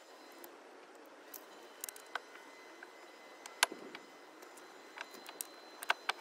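Small metal parts and tools clinking during hand work on a car's rear frame rail: scattered light clicks, the sharpest about three and a half seconds in, with a few more close together near the end.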